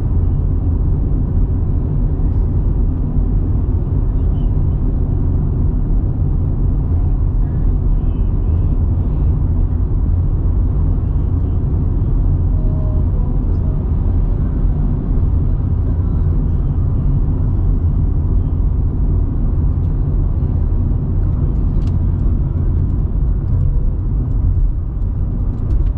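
Steady low rumble of a car's engine and tyre road noise, heard from inside the cabin while cruising at highway speed.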